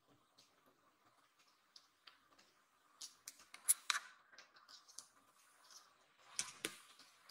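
Faint scratchy clicks and ticks of a tiny kitten's claws on the floor and the fleece sofa cover as it pokes underneath, with brief rustles of the fabric; loudest about four seconds in and again near the end.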